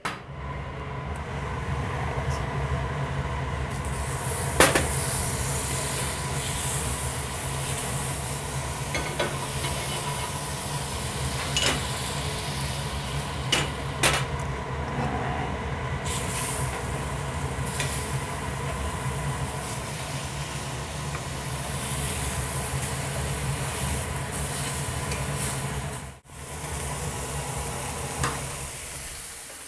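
Powerful range-hood vent fans running with a steady low drone, over blackening fish fillets sizzling in a smoking-hot skillet, with a few clicks of the pan and utensils. The sound drops out briefly near the end.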